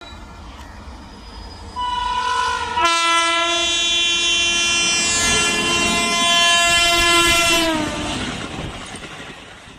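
Indian Railways electric locomotive sounding its horn: a short single note about two seconds in, then a loud multi-tone chord held for nearly five seconds that sags in pitch near the end, over the rumble of the approaching train, which fades afterwards.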